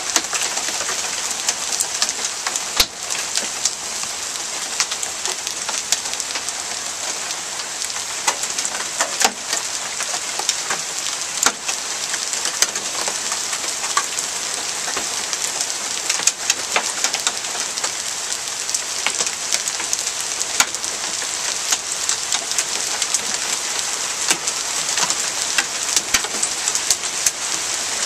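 Hailstorm with heavy rain: a steady, dense hiss of rain, dotted throughout with sharp ticks and cracks of hailstones striking the ground.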